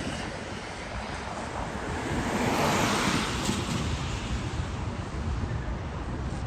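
Wind rushing over the microphone, with a noisy swell that builds to a peak around the middle and eases off again.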